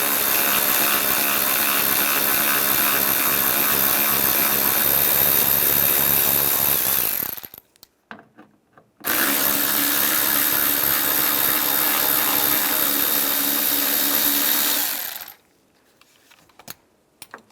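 Power drill spinning a T30 Torx socket to back out two door-handle screws: two steady motor runs of several seconds each, with a short pause between and a stop about fifteen seconds in.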